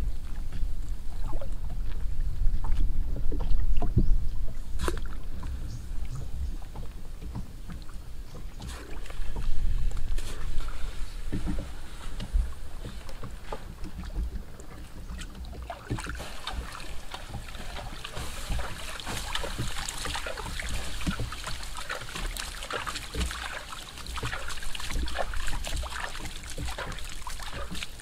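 Water lapping and knocking against a small wooden boat, with wind rumble on the microphone and scattered small clicks. About halfway through, a dense crackling hiss joins in.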